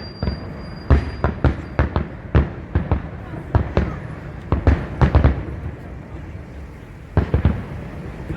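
Fireworks display: a rapid, irregular series of sharp bangs from bursting shells, easing into a short lull about five and a half seconds in before the bangs start again.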